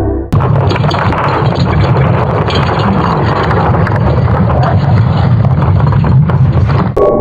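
A space-sound clip: a dense, low rumbling noise that starts abruptly and cuts off suddenly near the end.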